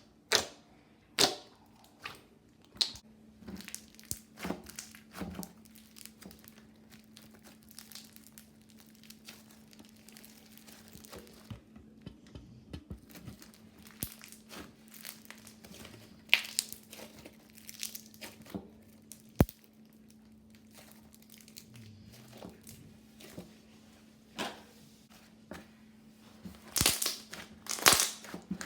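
Hands working slime: scattered squishing and crackling pops, with a cluster of louder crunchy crackles near the end, over a faint steady hum.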